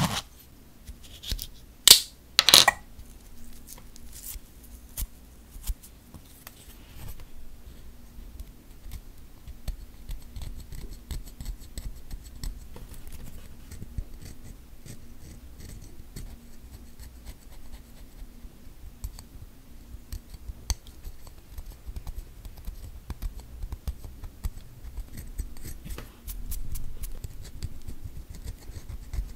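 A metal triangle cuticle pusher scrapes soaked, softened gel polish off a fingernail, making many faint scratchy ticks. About two seconds in there are two loud, sharp crackles as the pusher's plastic packaging is handled.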